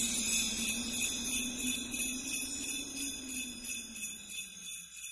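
Sleigh bells shaken in a steady rhythm over a low held note that sinks slightly in pitch, the whole fading out toward the end.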